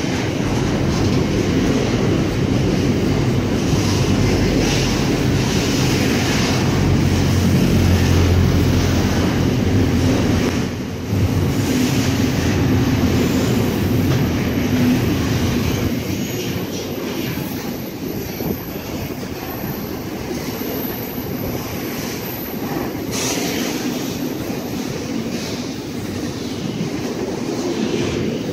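Container wagons of a freight train rolling past: a steady rumble of wheels on rail, dipping briefly about a third of the way in and easing a little in the second half.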